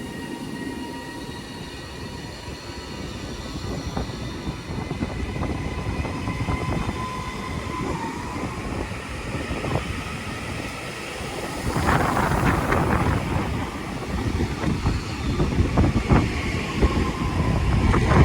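Two coupled Class 331 electric multiple units pulling out of the station. Steady whining tones sit over rumbling wheel-and-rail noise, and the noise grows louder about twelve seconds in.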